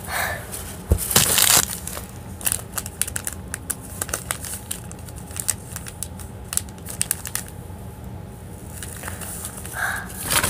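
Candy wrappers crinkling and crackling as they are handled, in an uneven run of small crackles, with a single dull thump about a second in.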